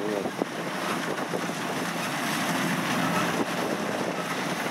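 Kubota DC-93 rice combine harvester running steadily as it cuts ripe rice, with wind buffeting the microphone.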